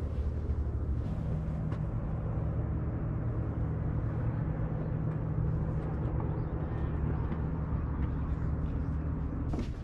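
Steady low rumble of open-air ambience, even throughout, with no distinct events.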